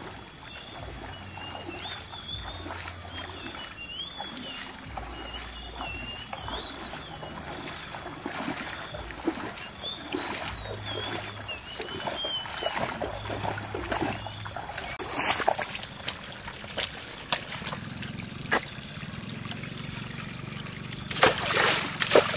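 Feet splashing as a person wades through shallow stream water. Near the end there is a burst of loud, heavy splashing as a stick is jabbed repeatedly into a water-filled hole among bamboo roots.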